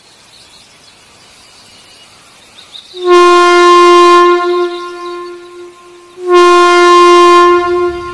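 Diesel locomotive air horn sounding two long, steady blasts, the first starting about three seconds in and the second about three seconds later, each fading off at its end.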